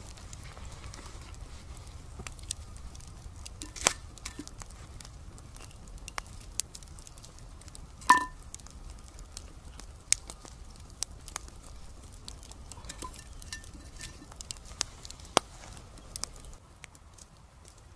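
Wood campfire crackling with scattered sharp pops, as burning logs are set on the lid of a cast iron Dutch oven. The loudest knock, about eight seconds in, rings briefly.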